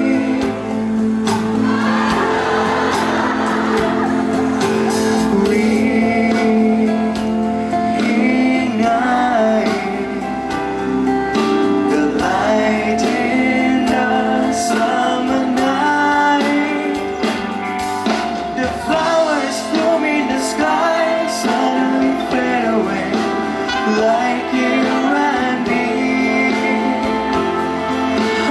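Live band music with a male singer singing into a handheld microphone, an electric guitar in the accompaniment.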